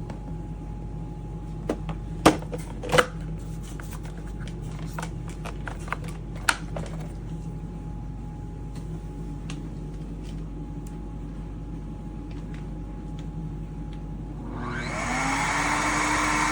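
A few sharp clicks and knocks over a low steady hum, then near the end the Shark HydroVac wet-dry vacuum's motor starts up, its whine rising in pitch as it spins up.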